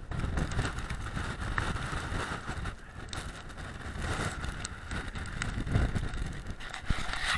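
Wind buffeting the action camera's microphone on an exposed snowy summit, a gusting rumble with a few short knocks from the camera being handled or carried.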